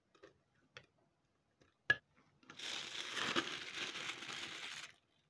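A metal spoon clicks a few times against a glass as batter is scraped into a plastic piping bag. Then, about halfway through, the plastic piping bag crinkles steadily for a couple of seconds as it is gathered and lifted.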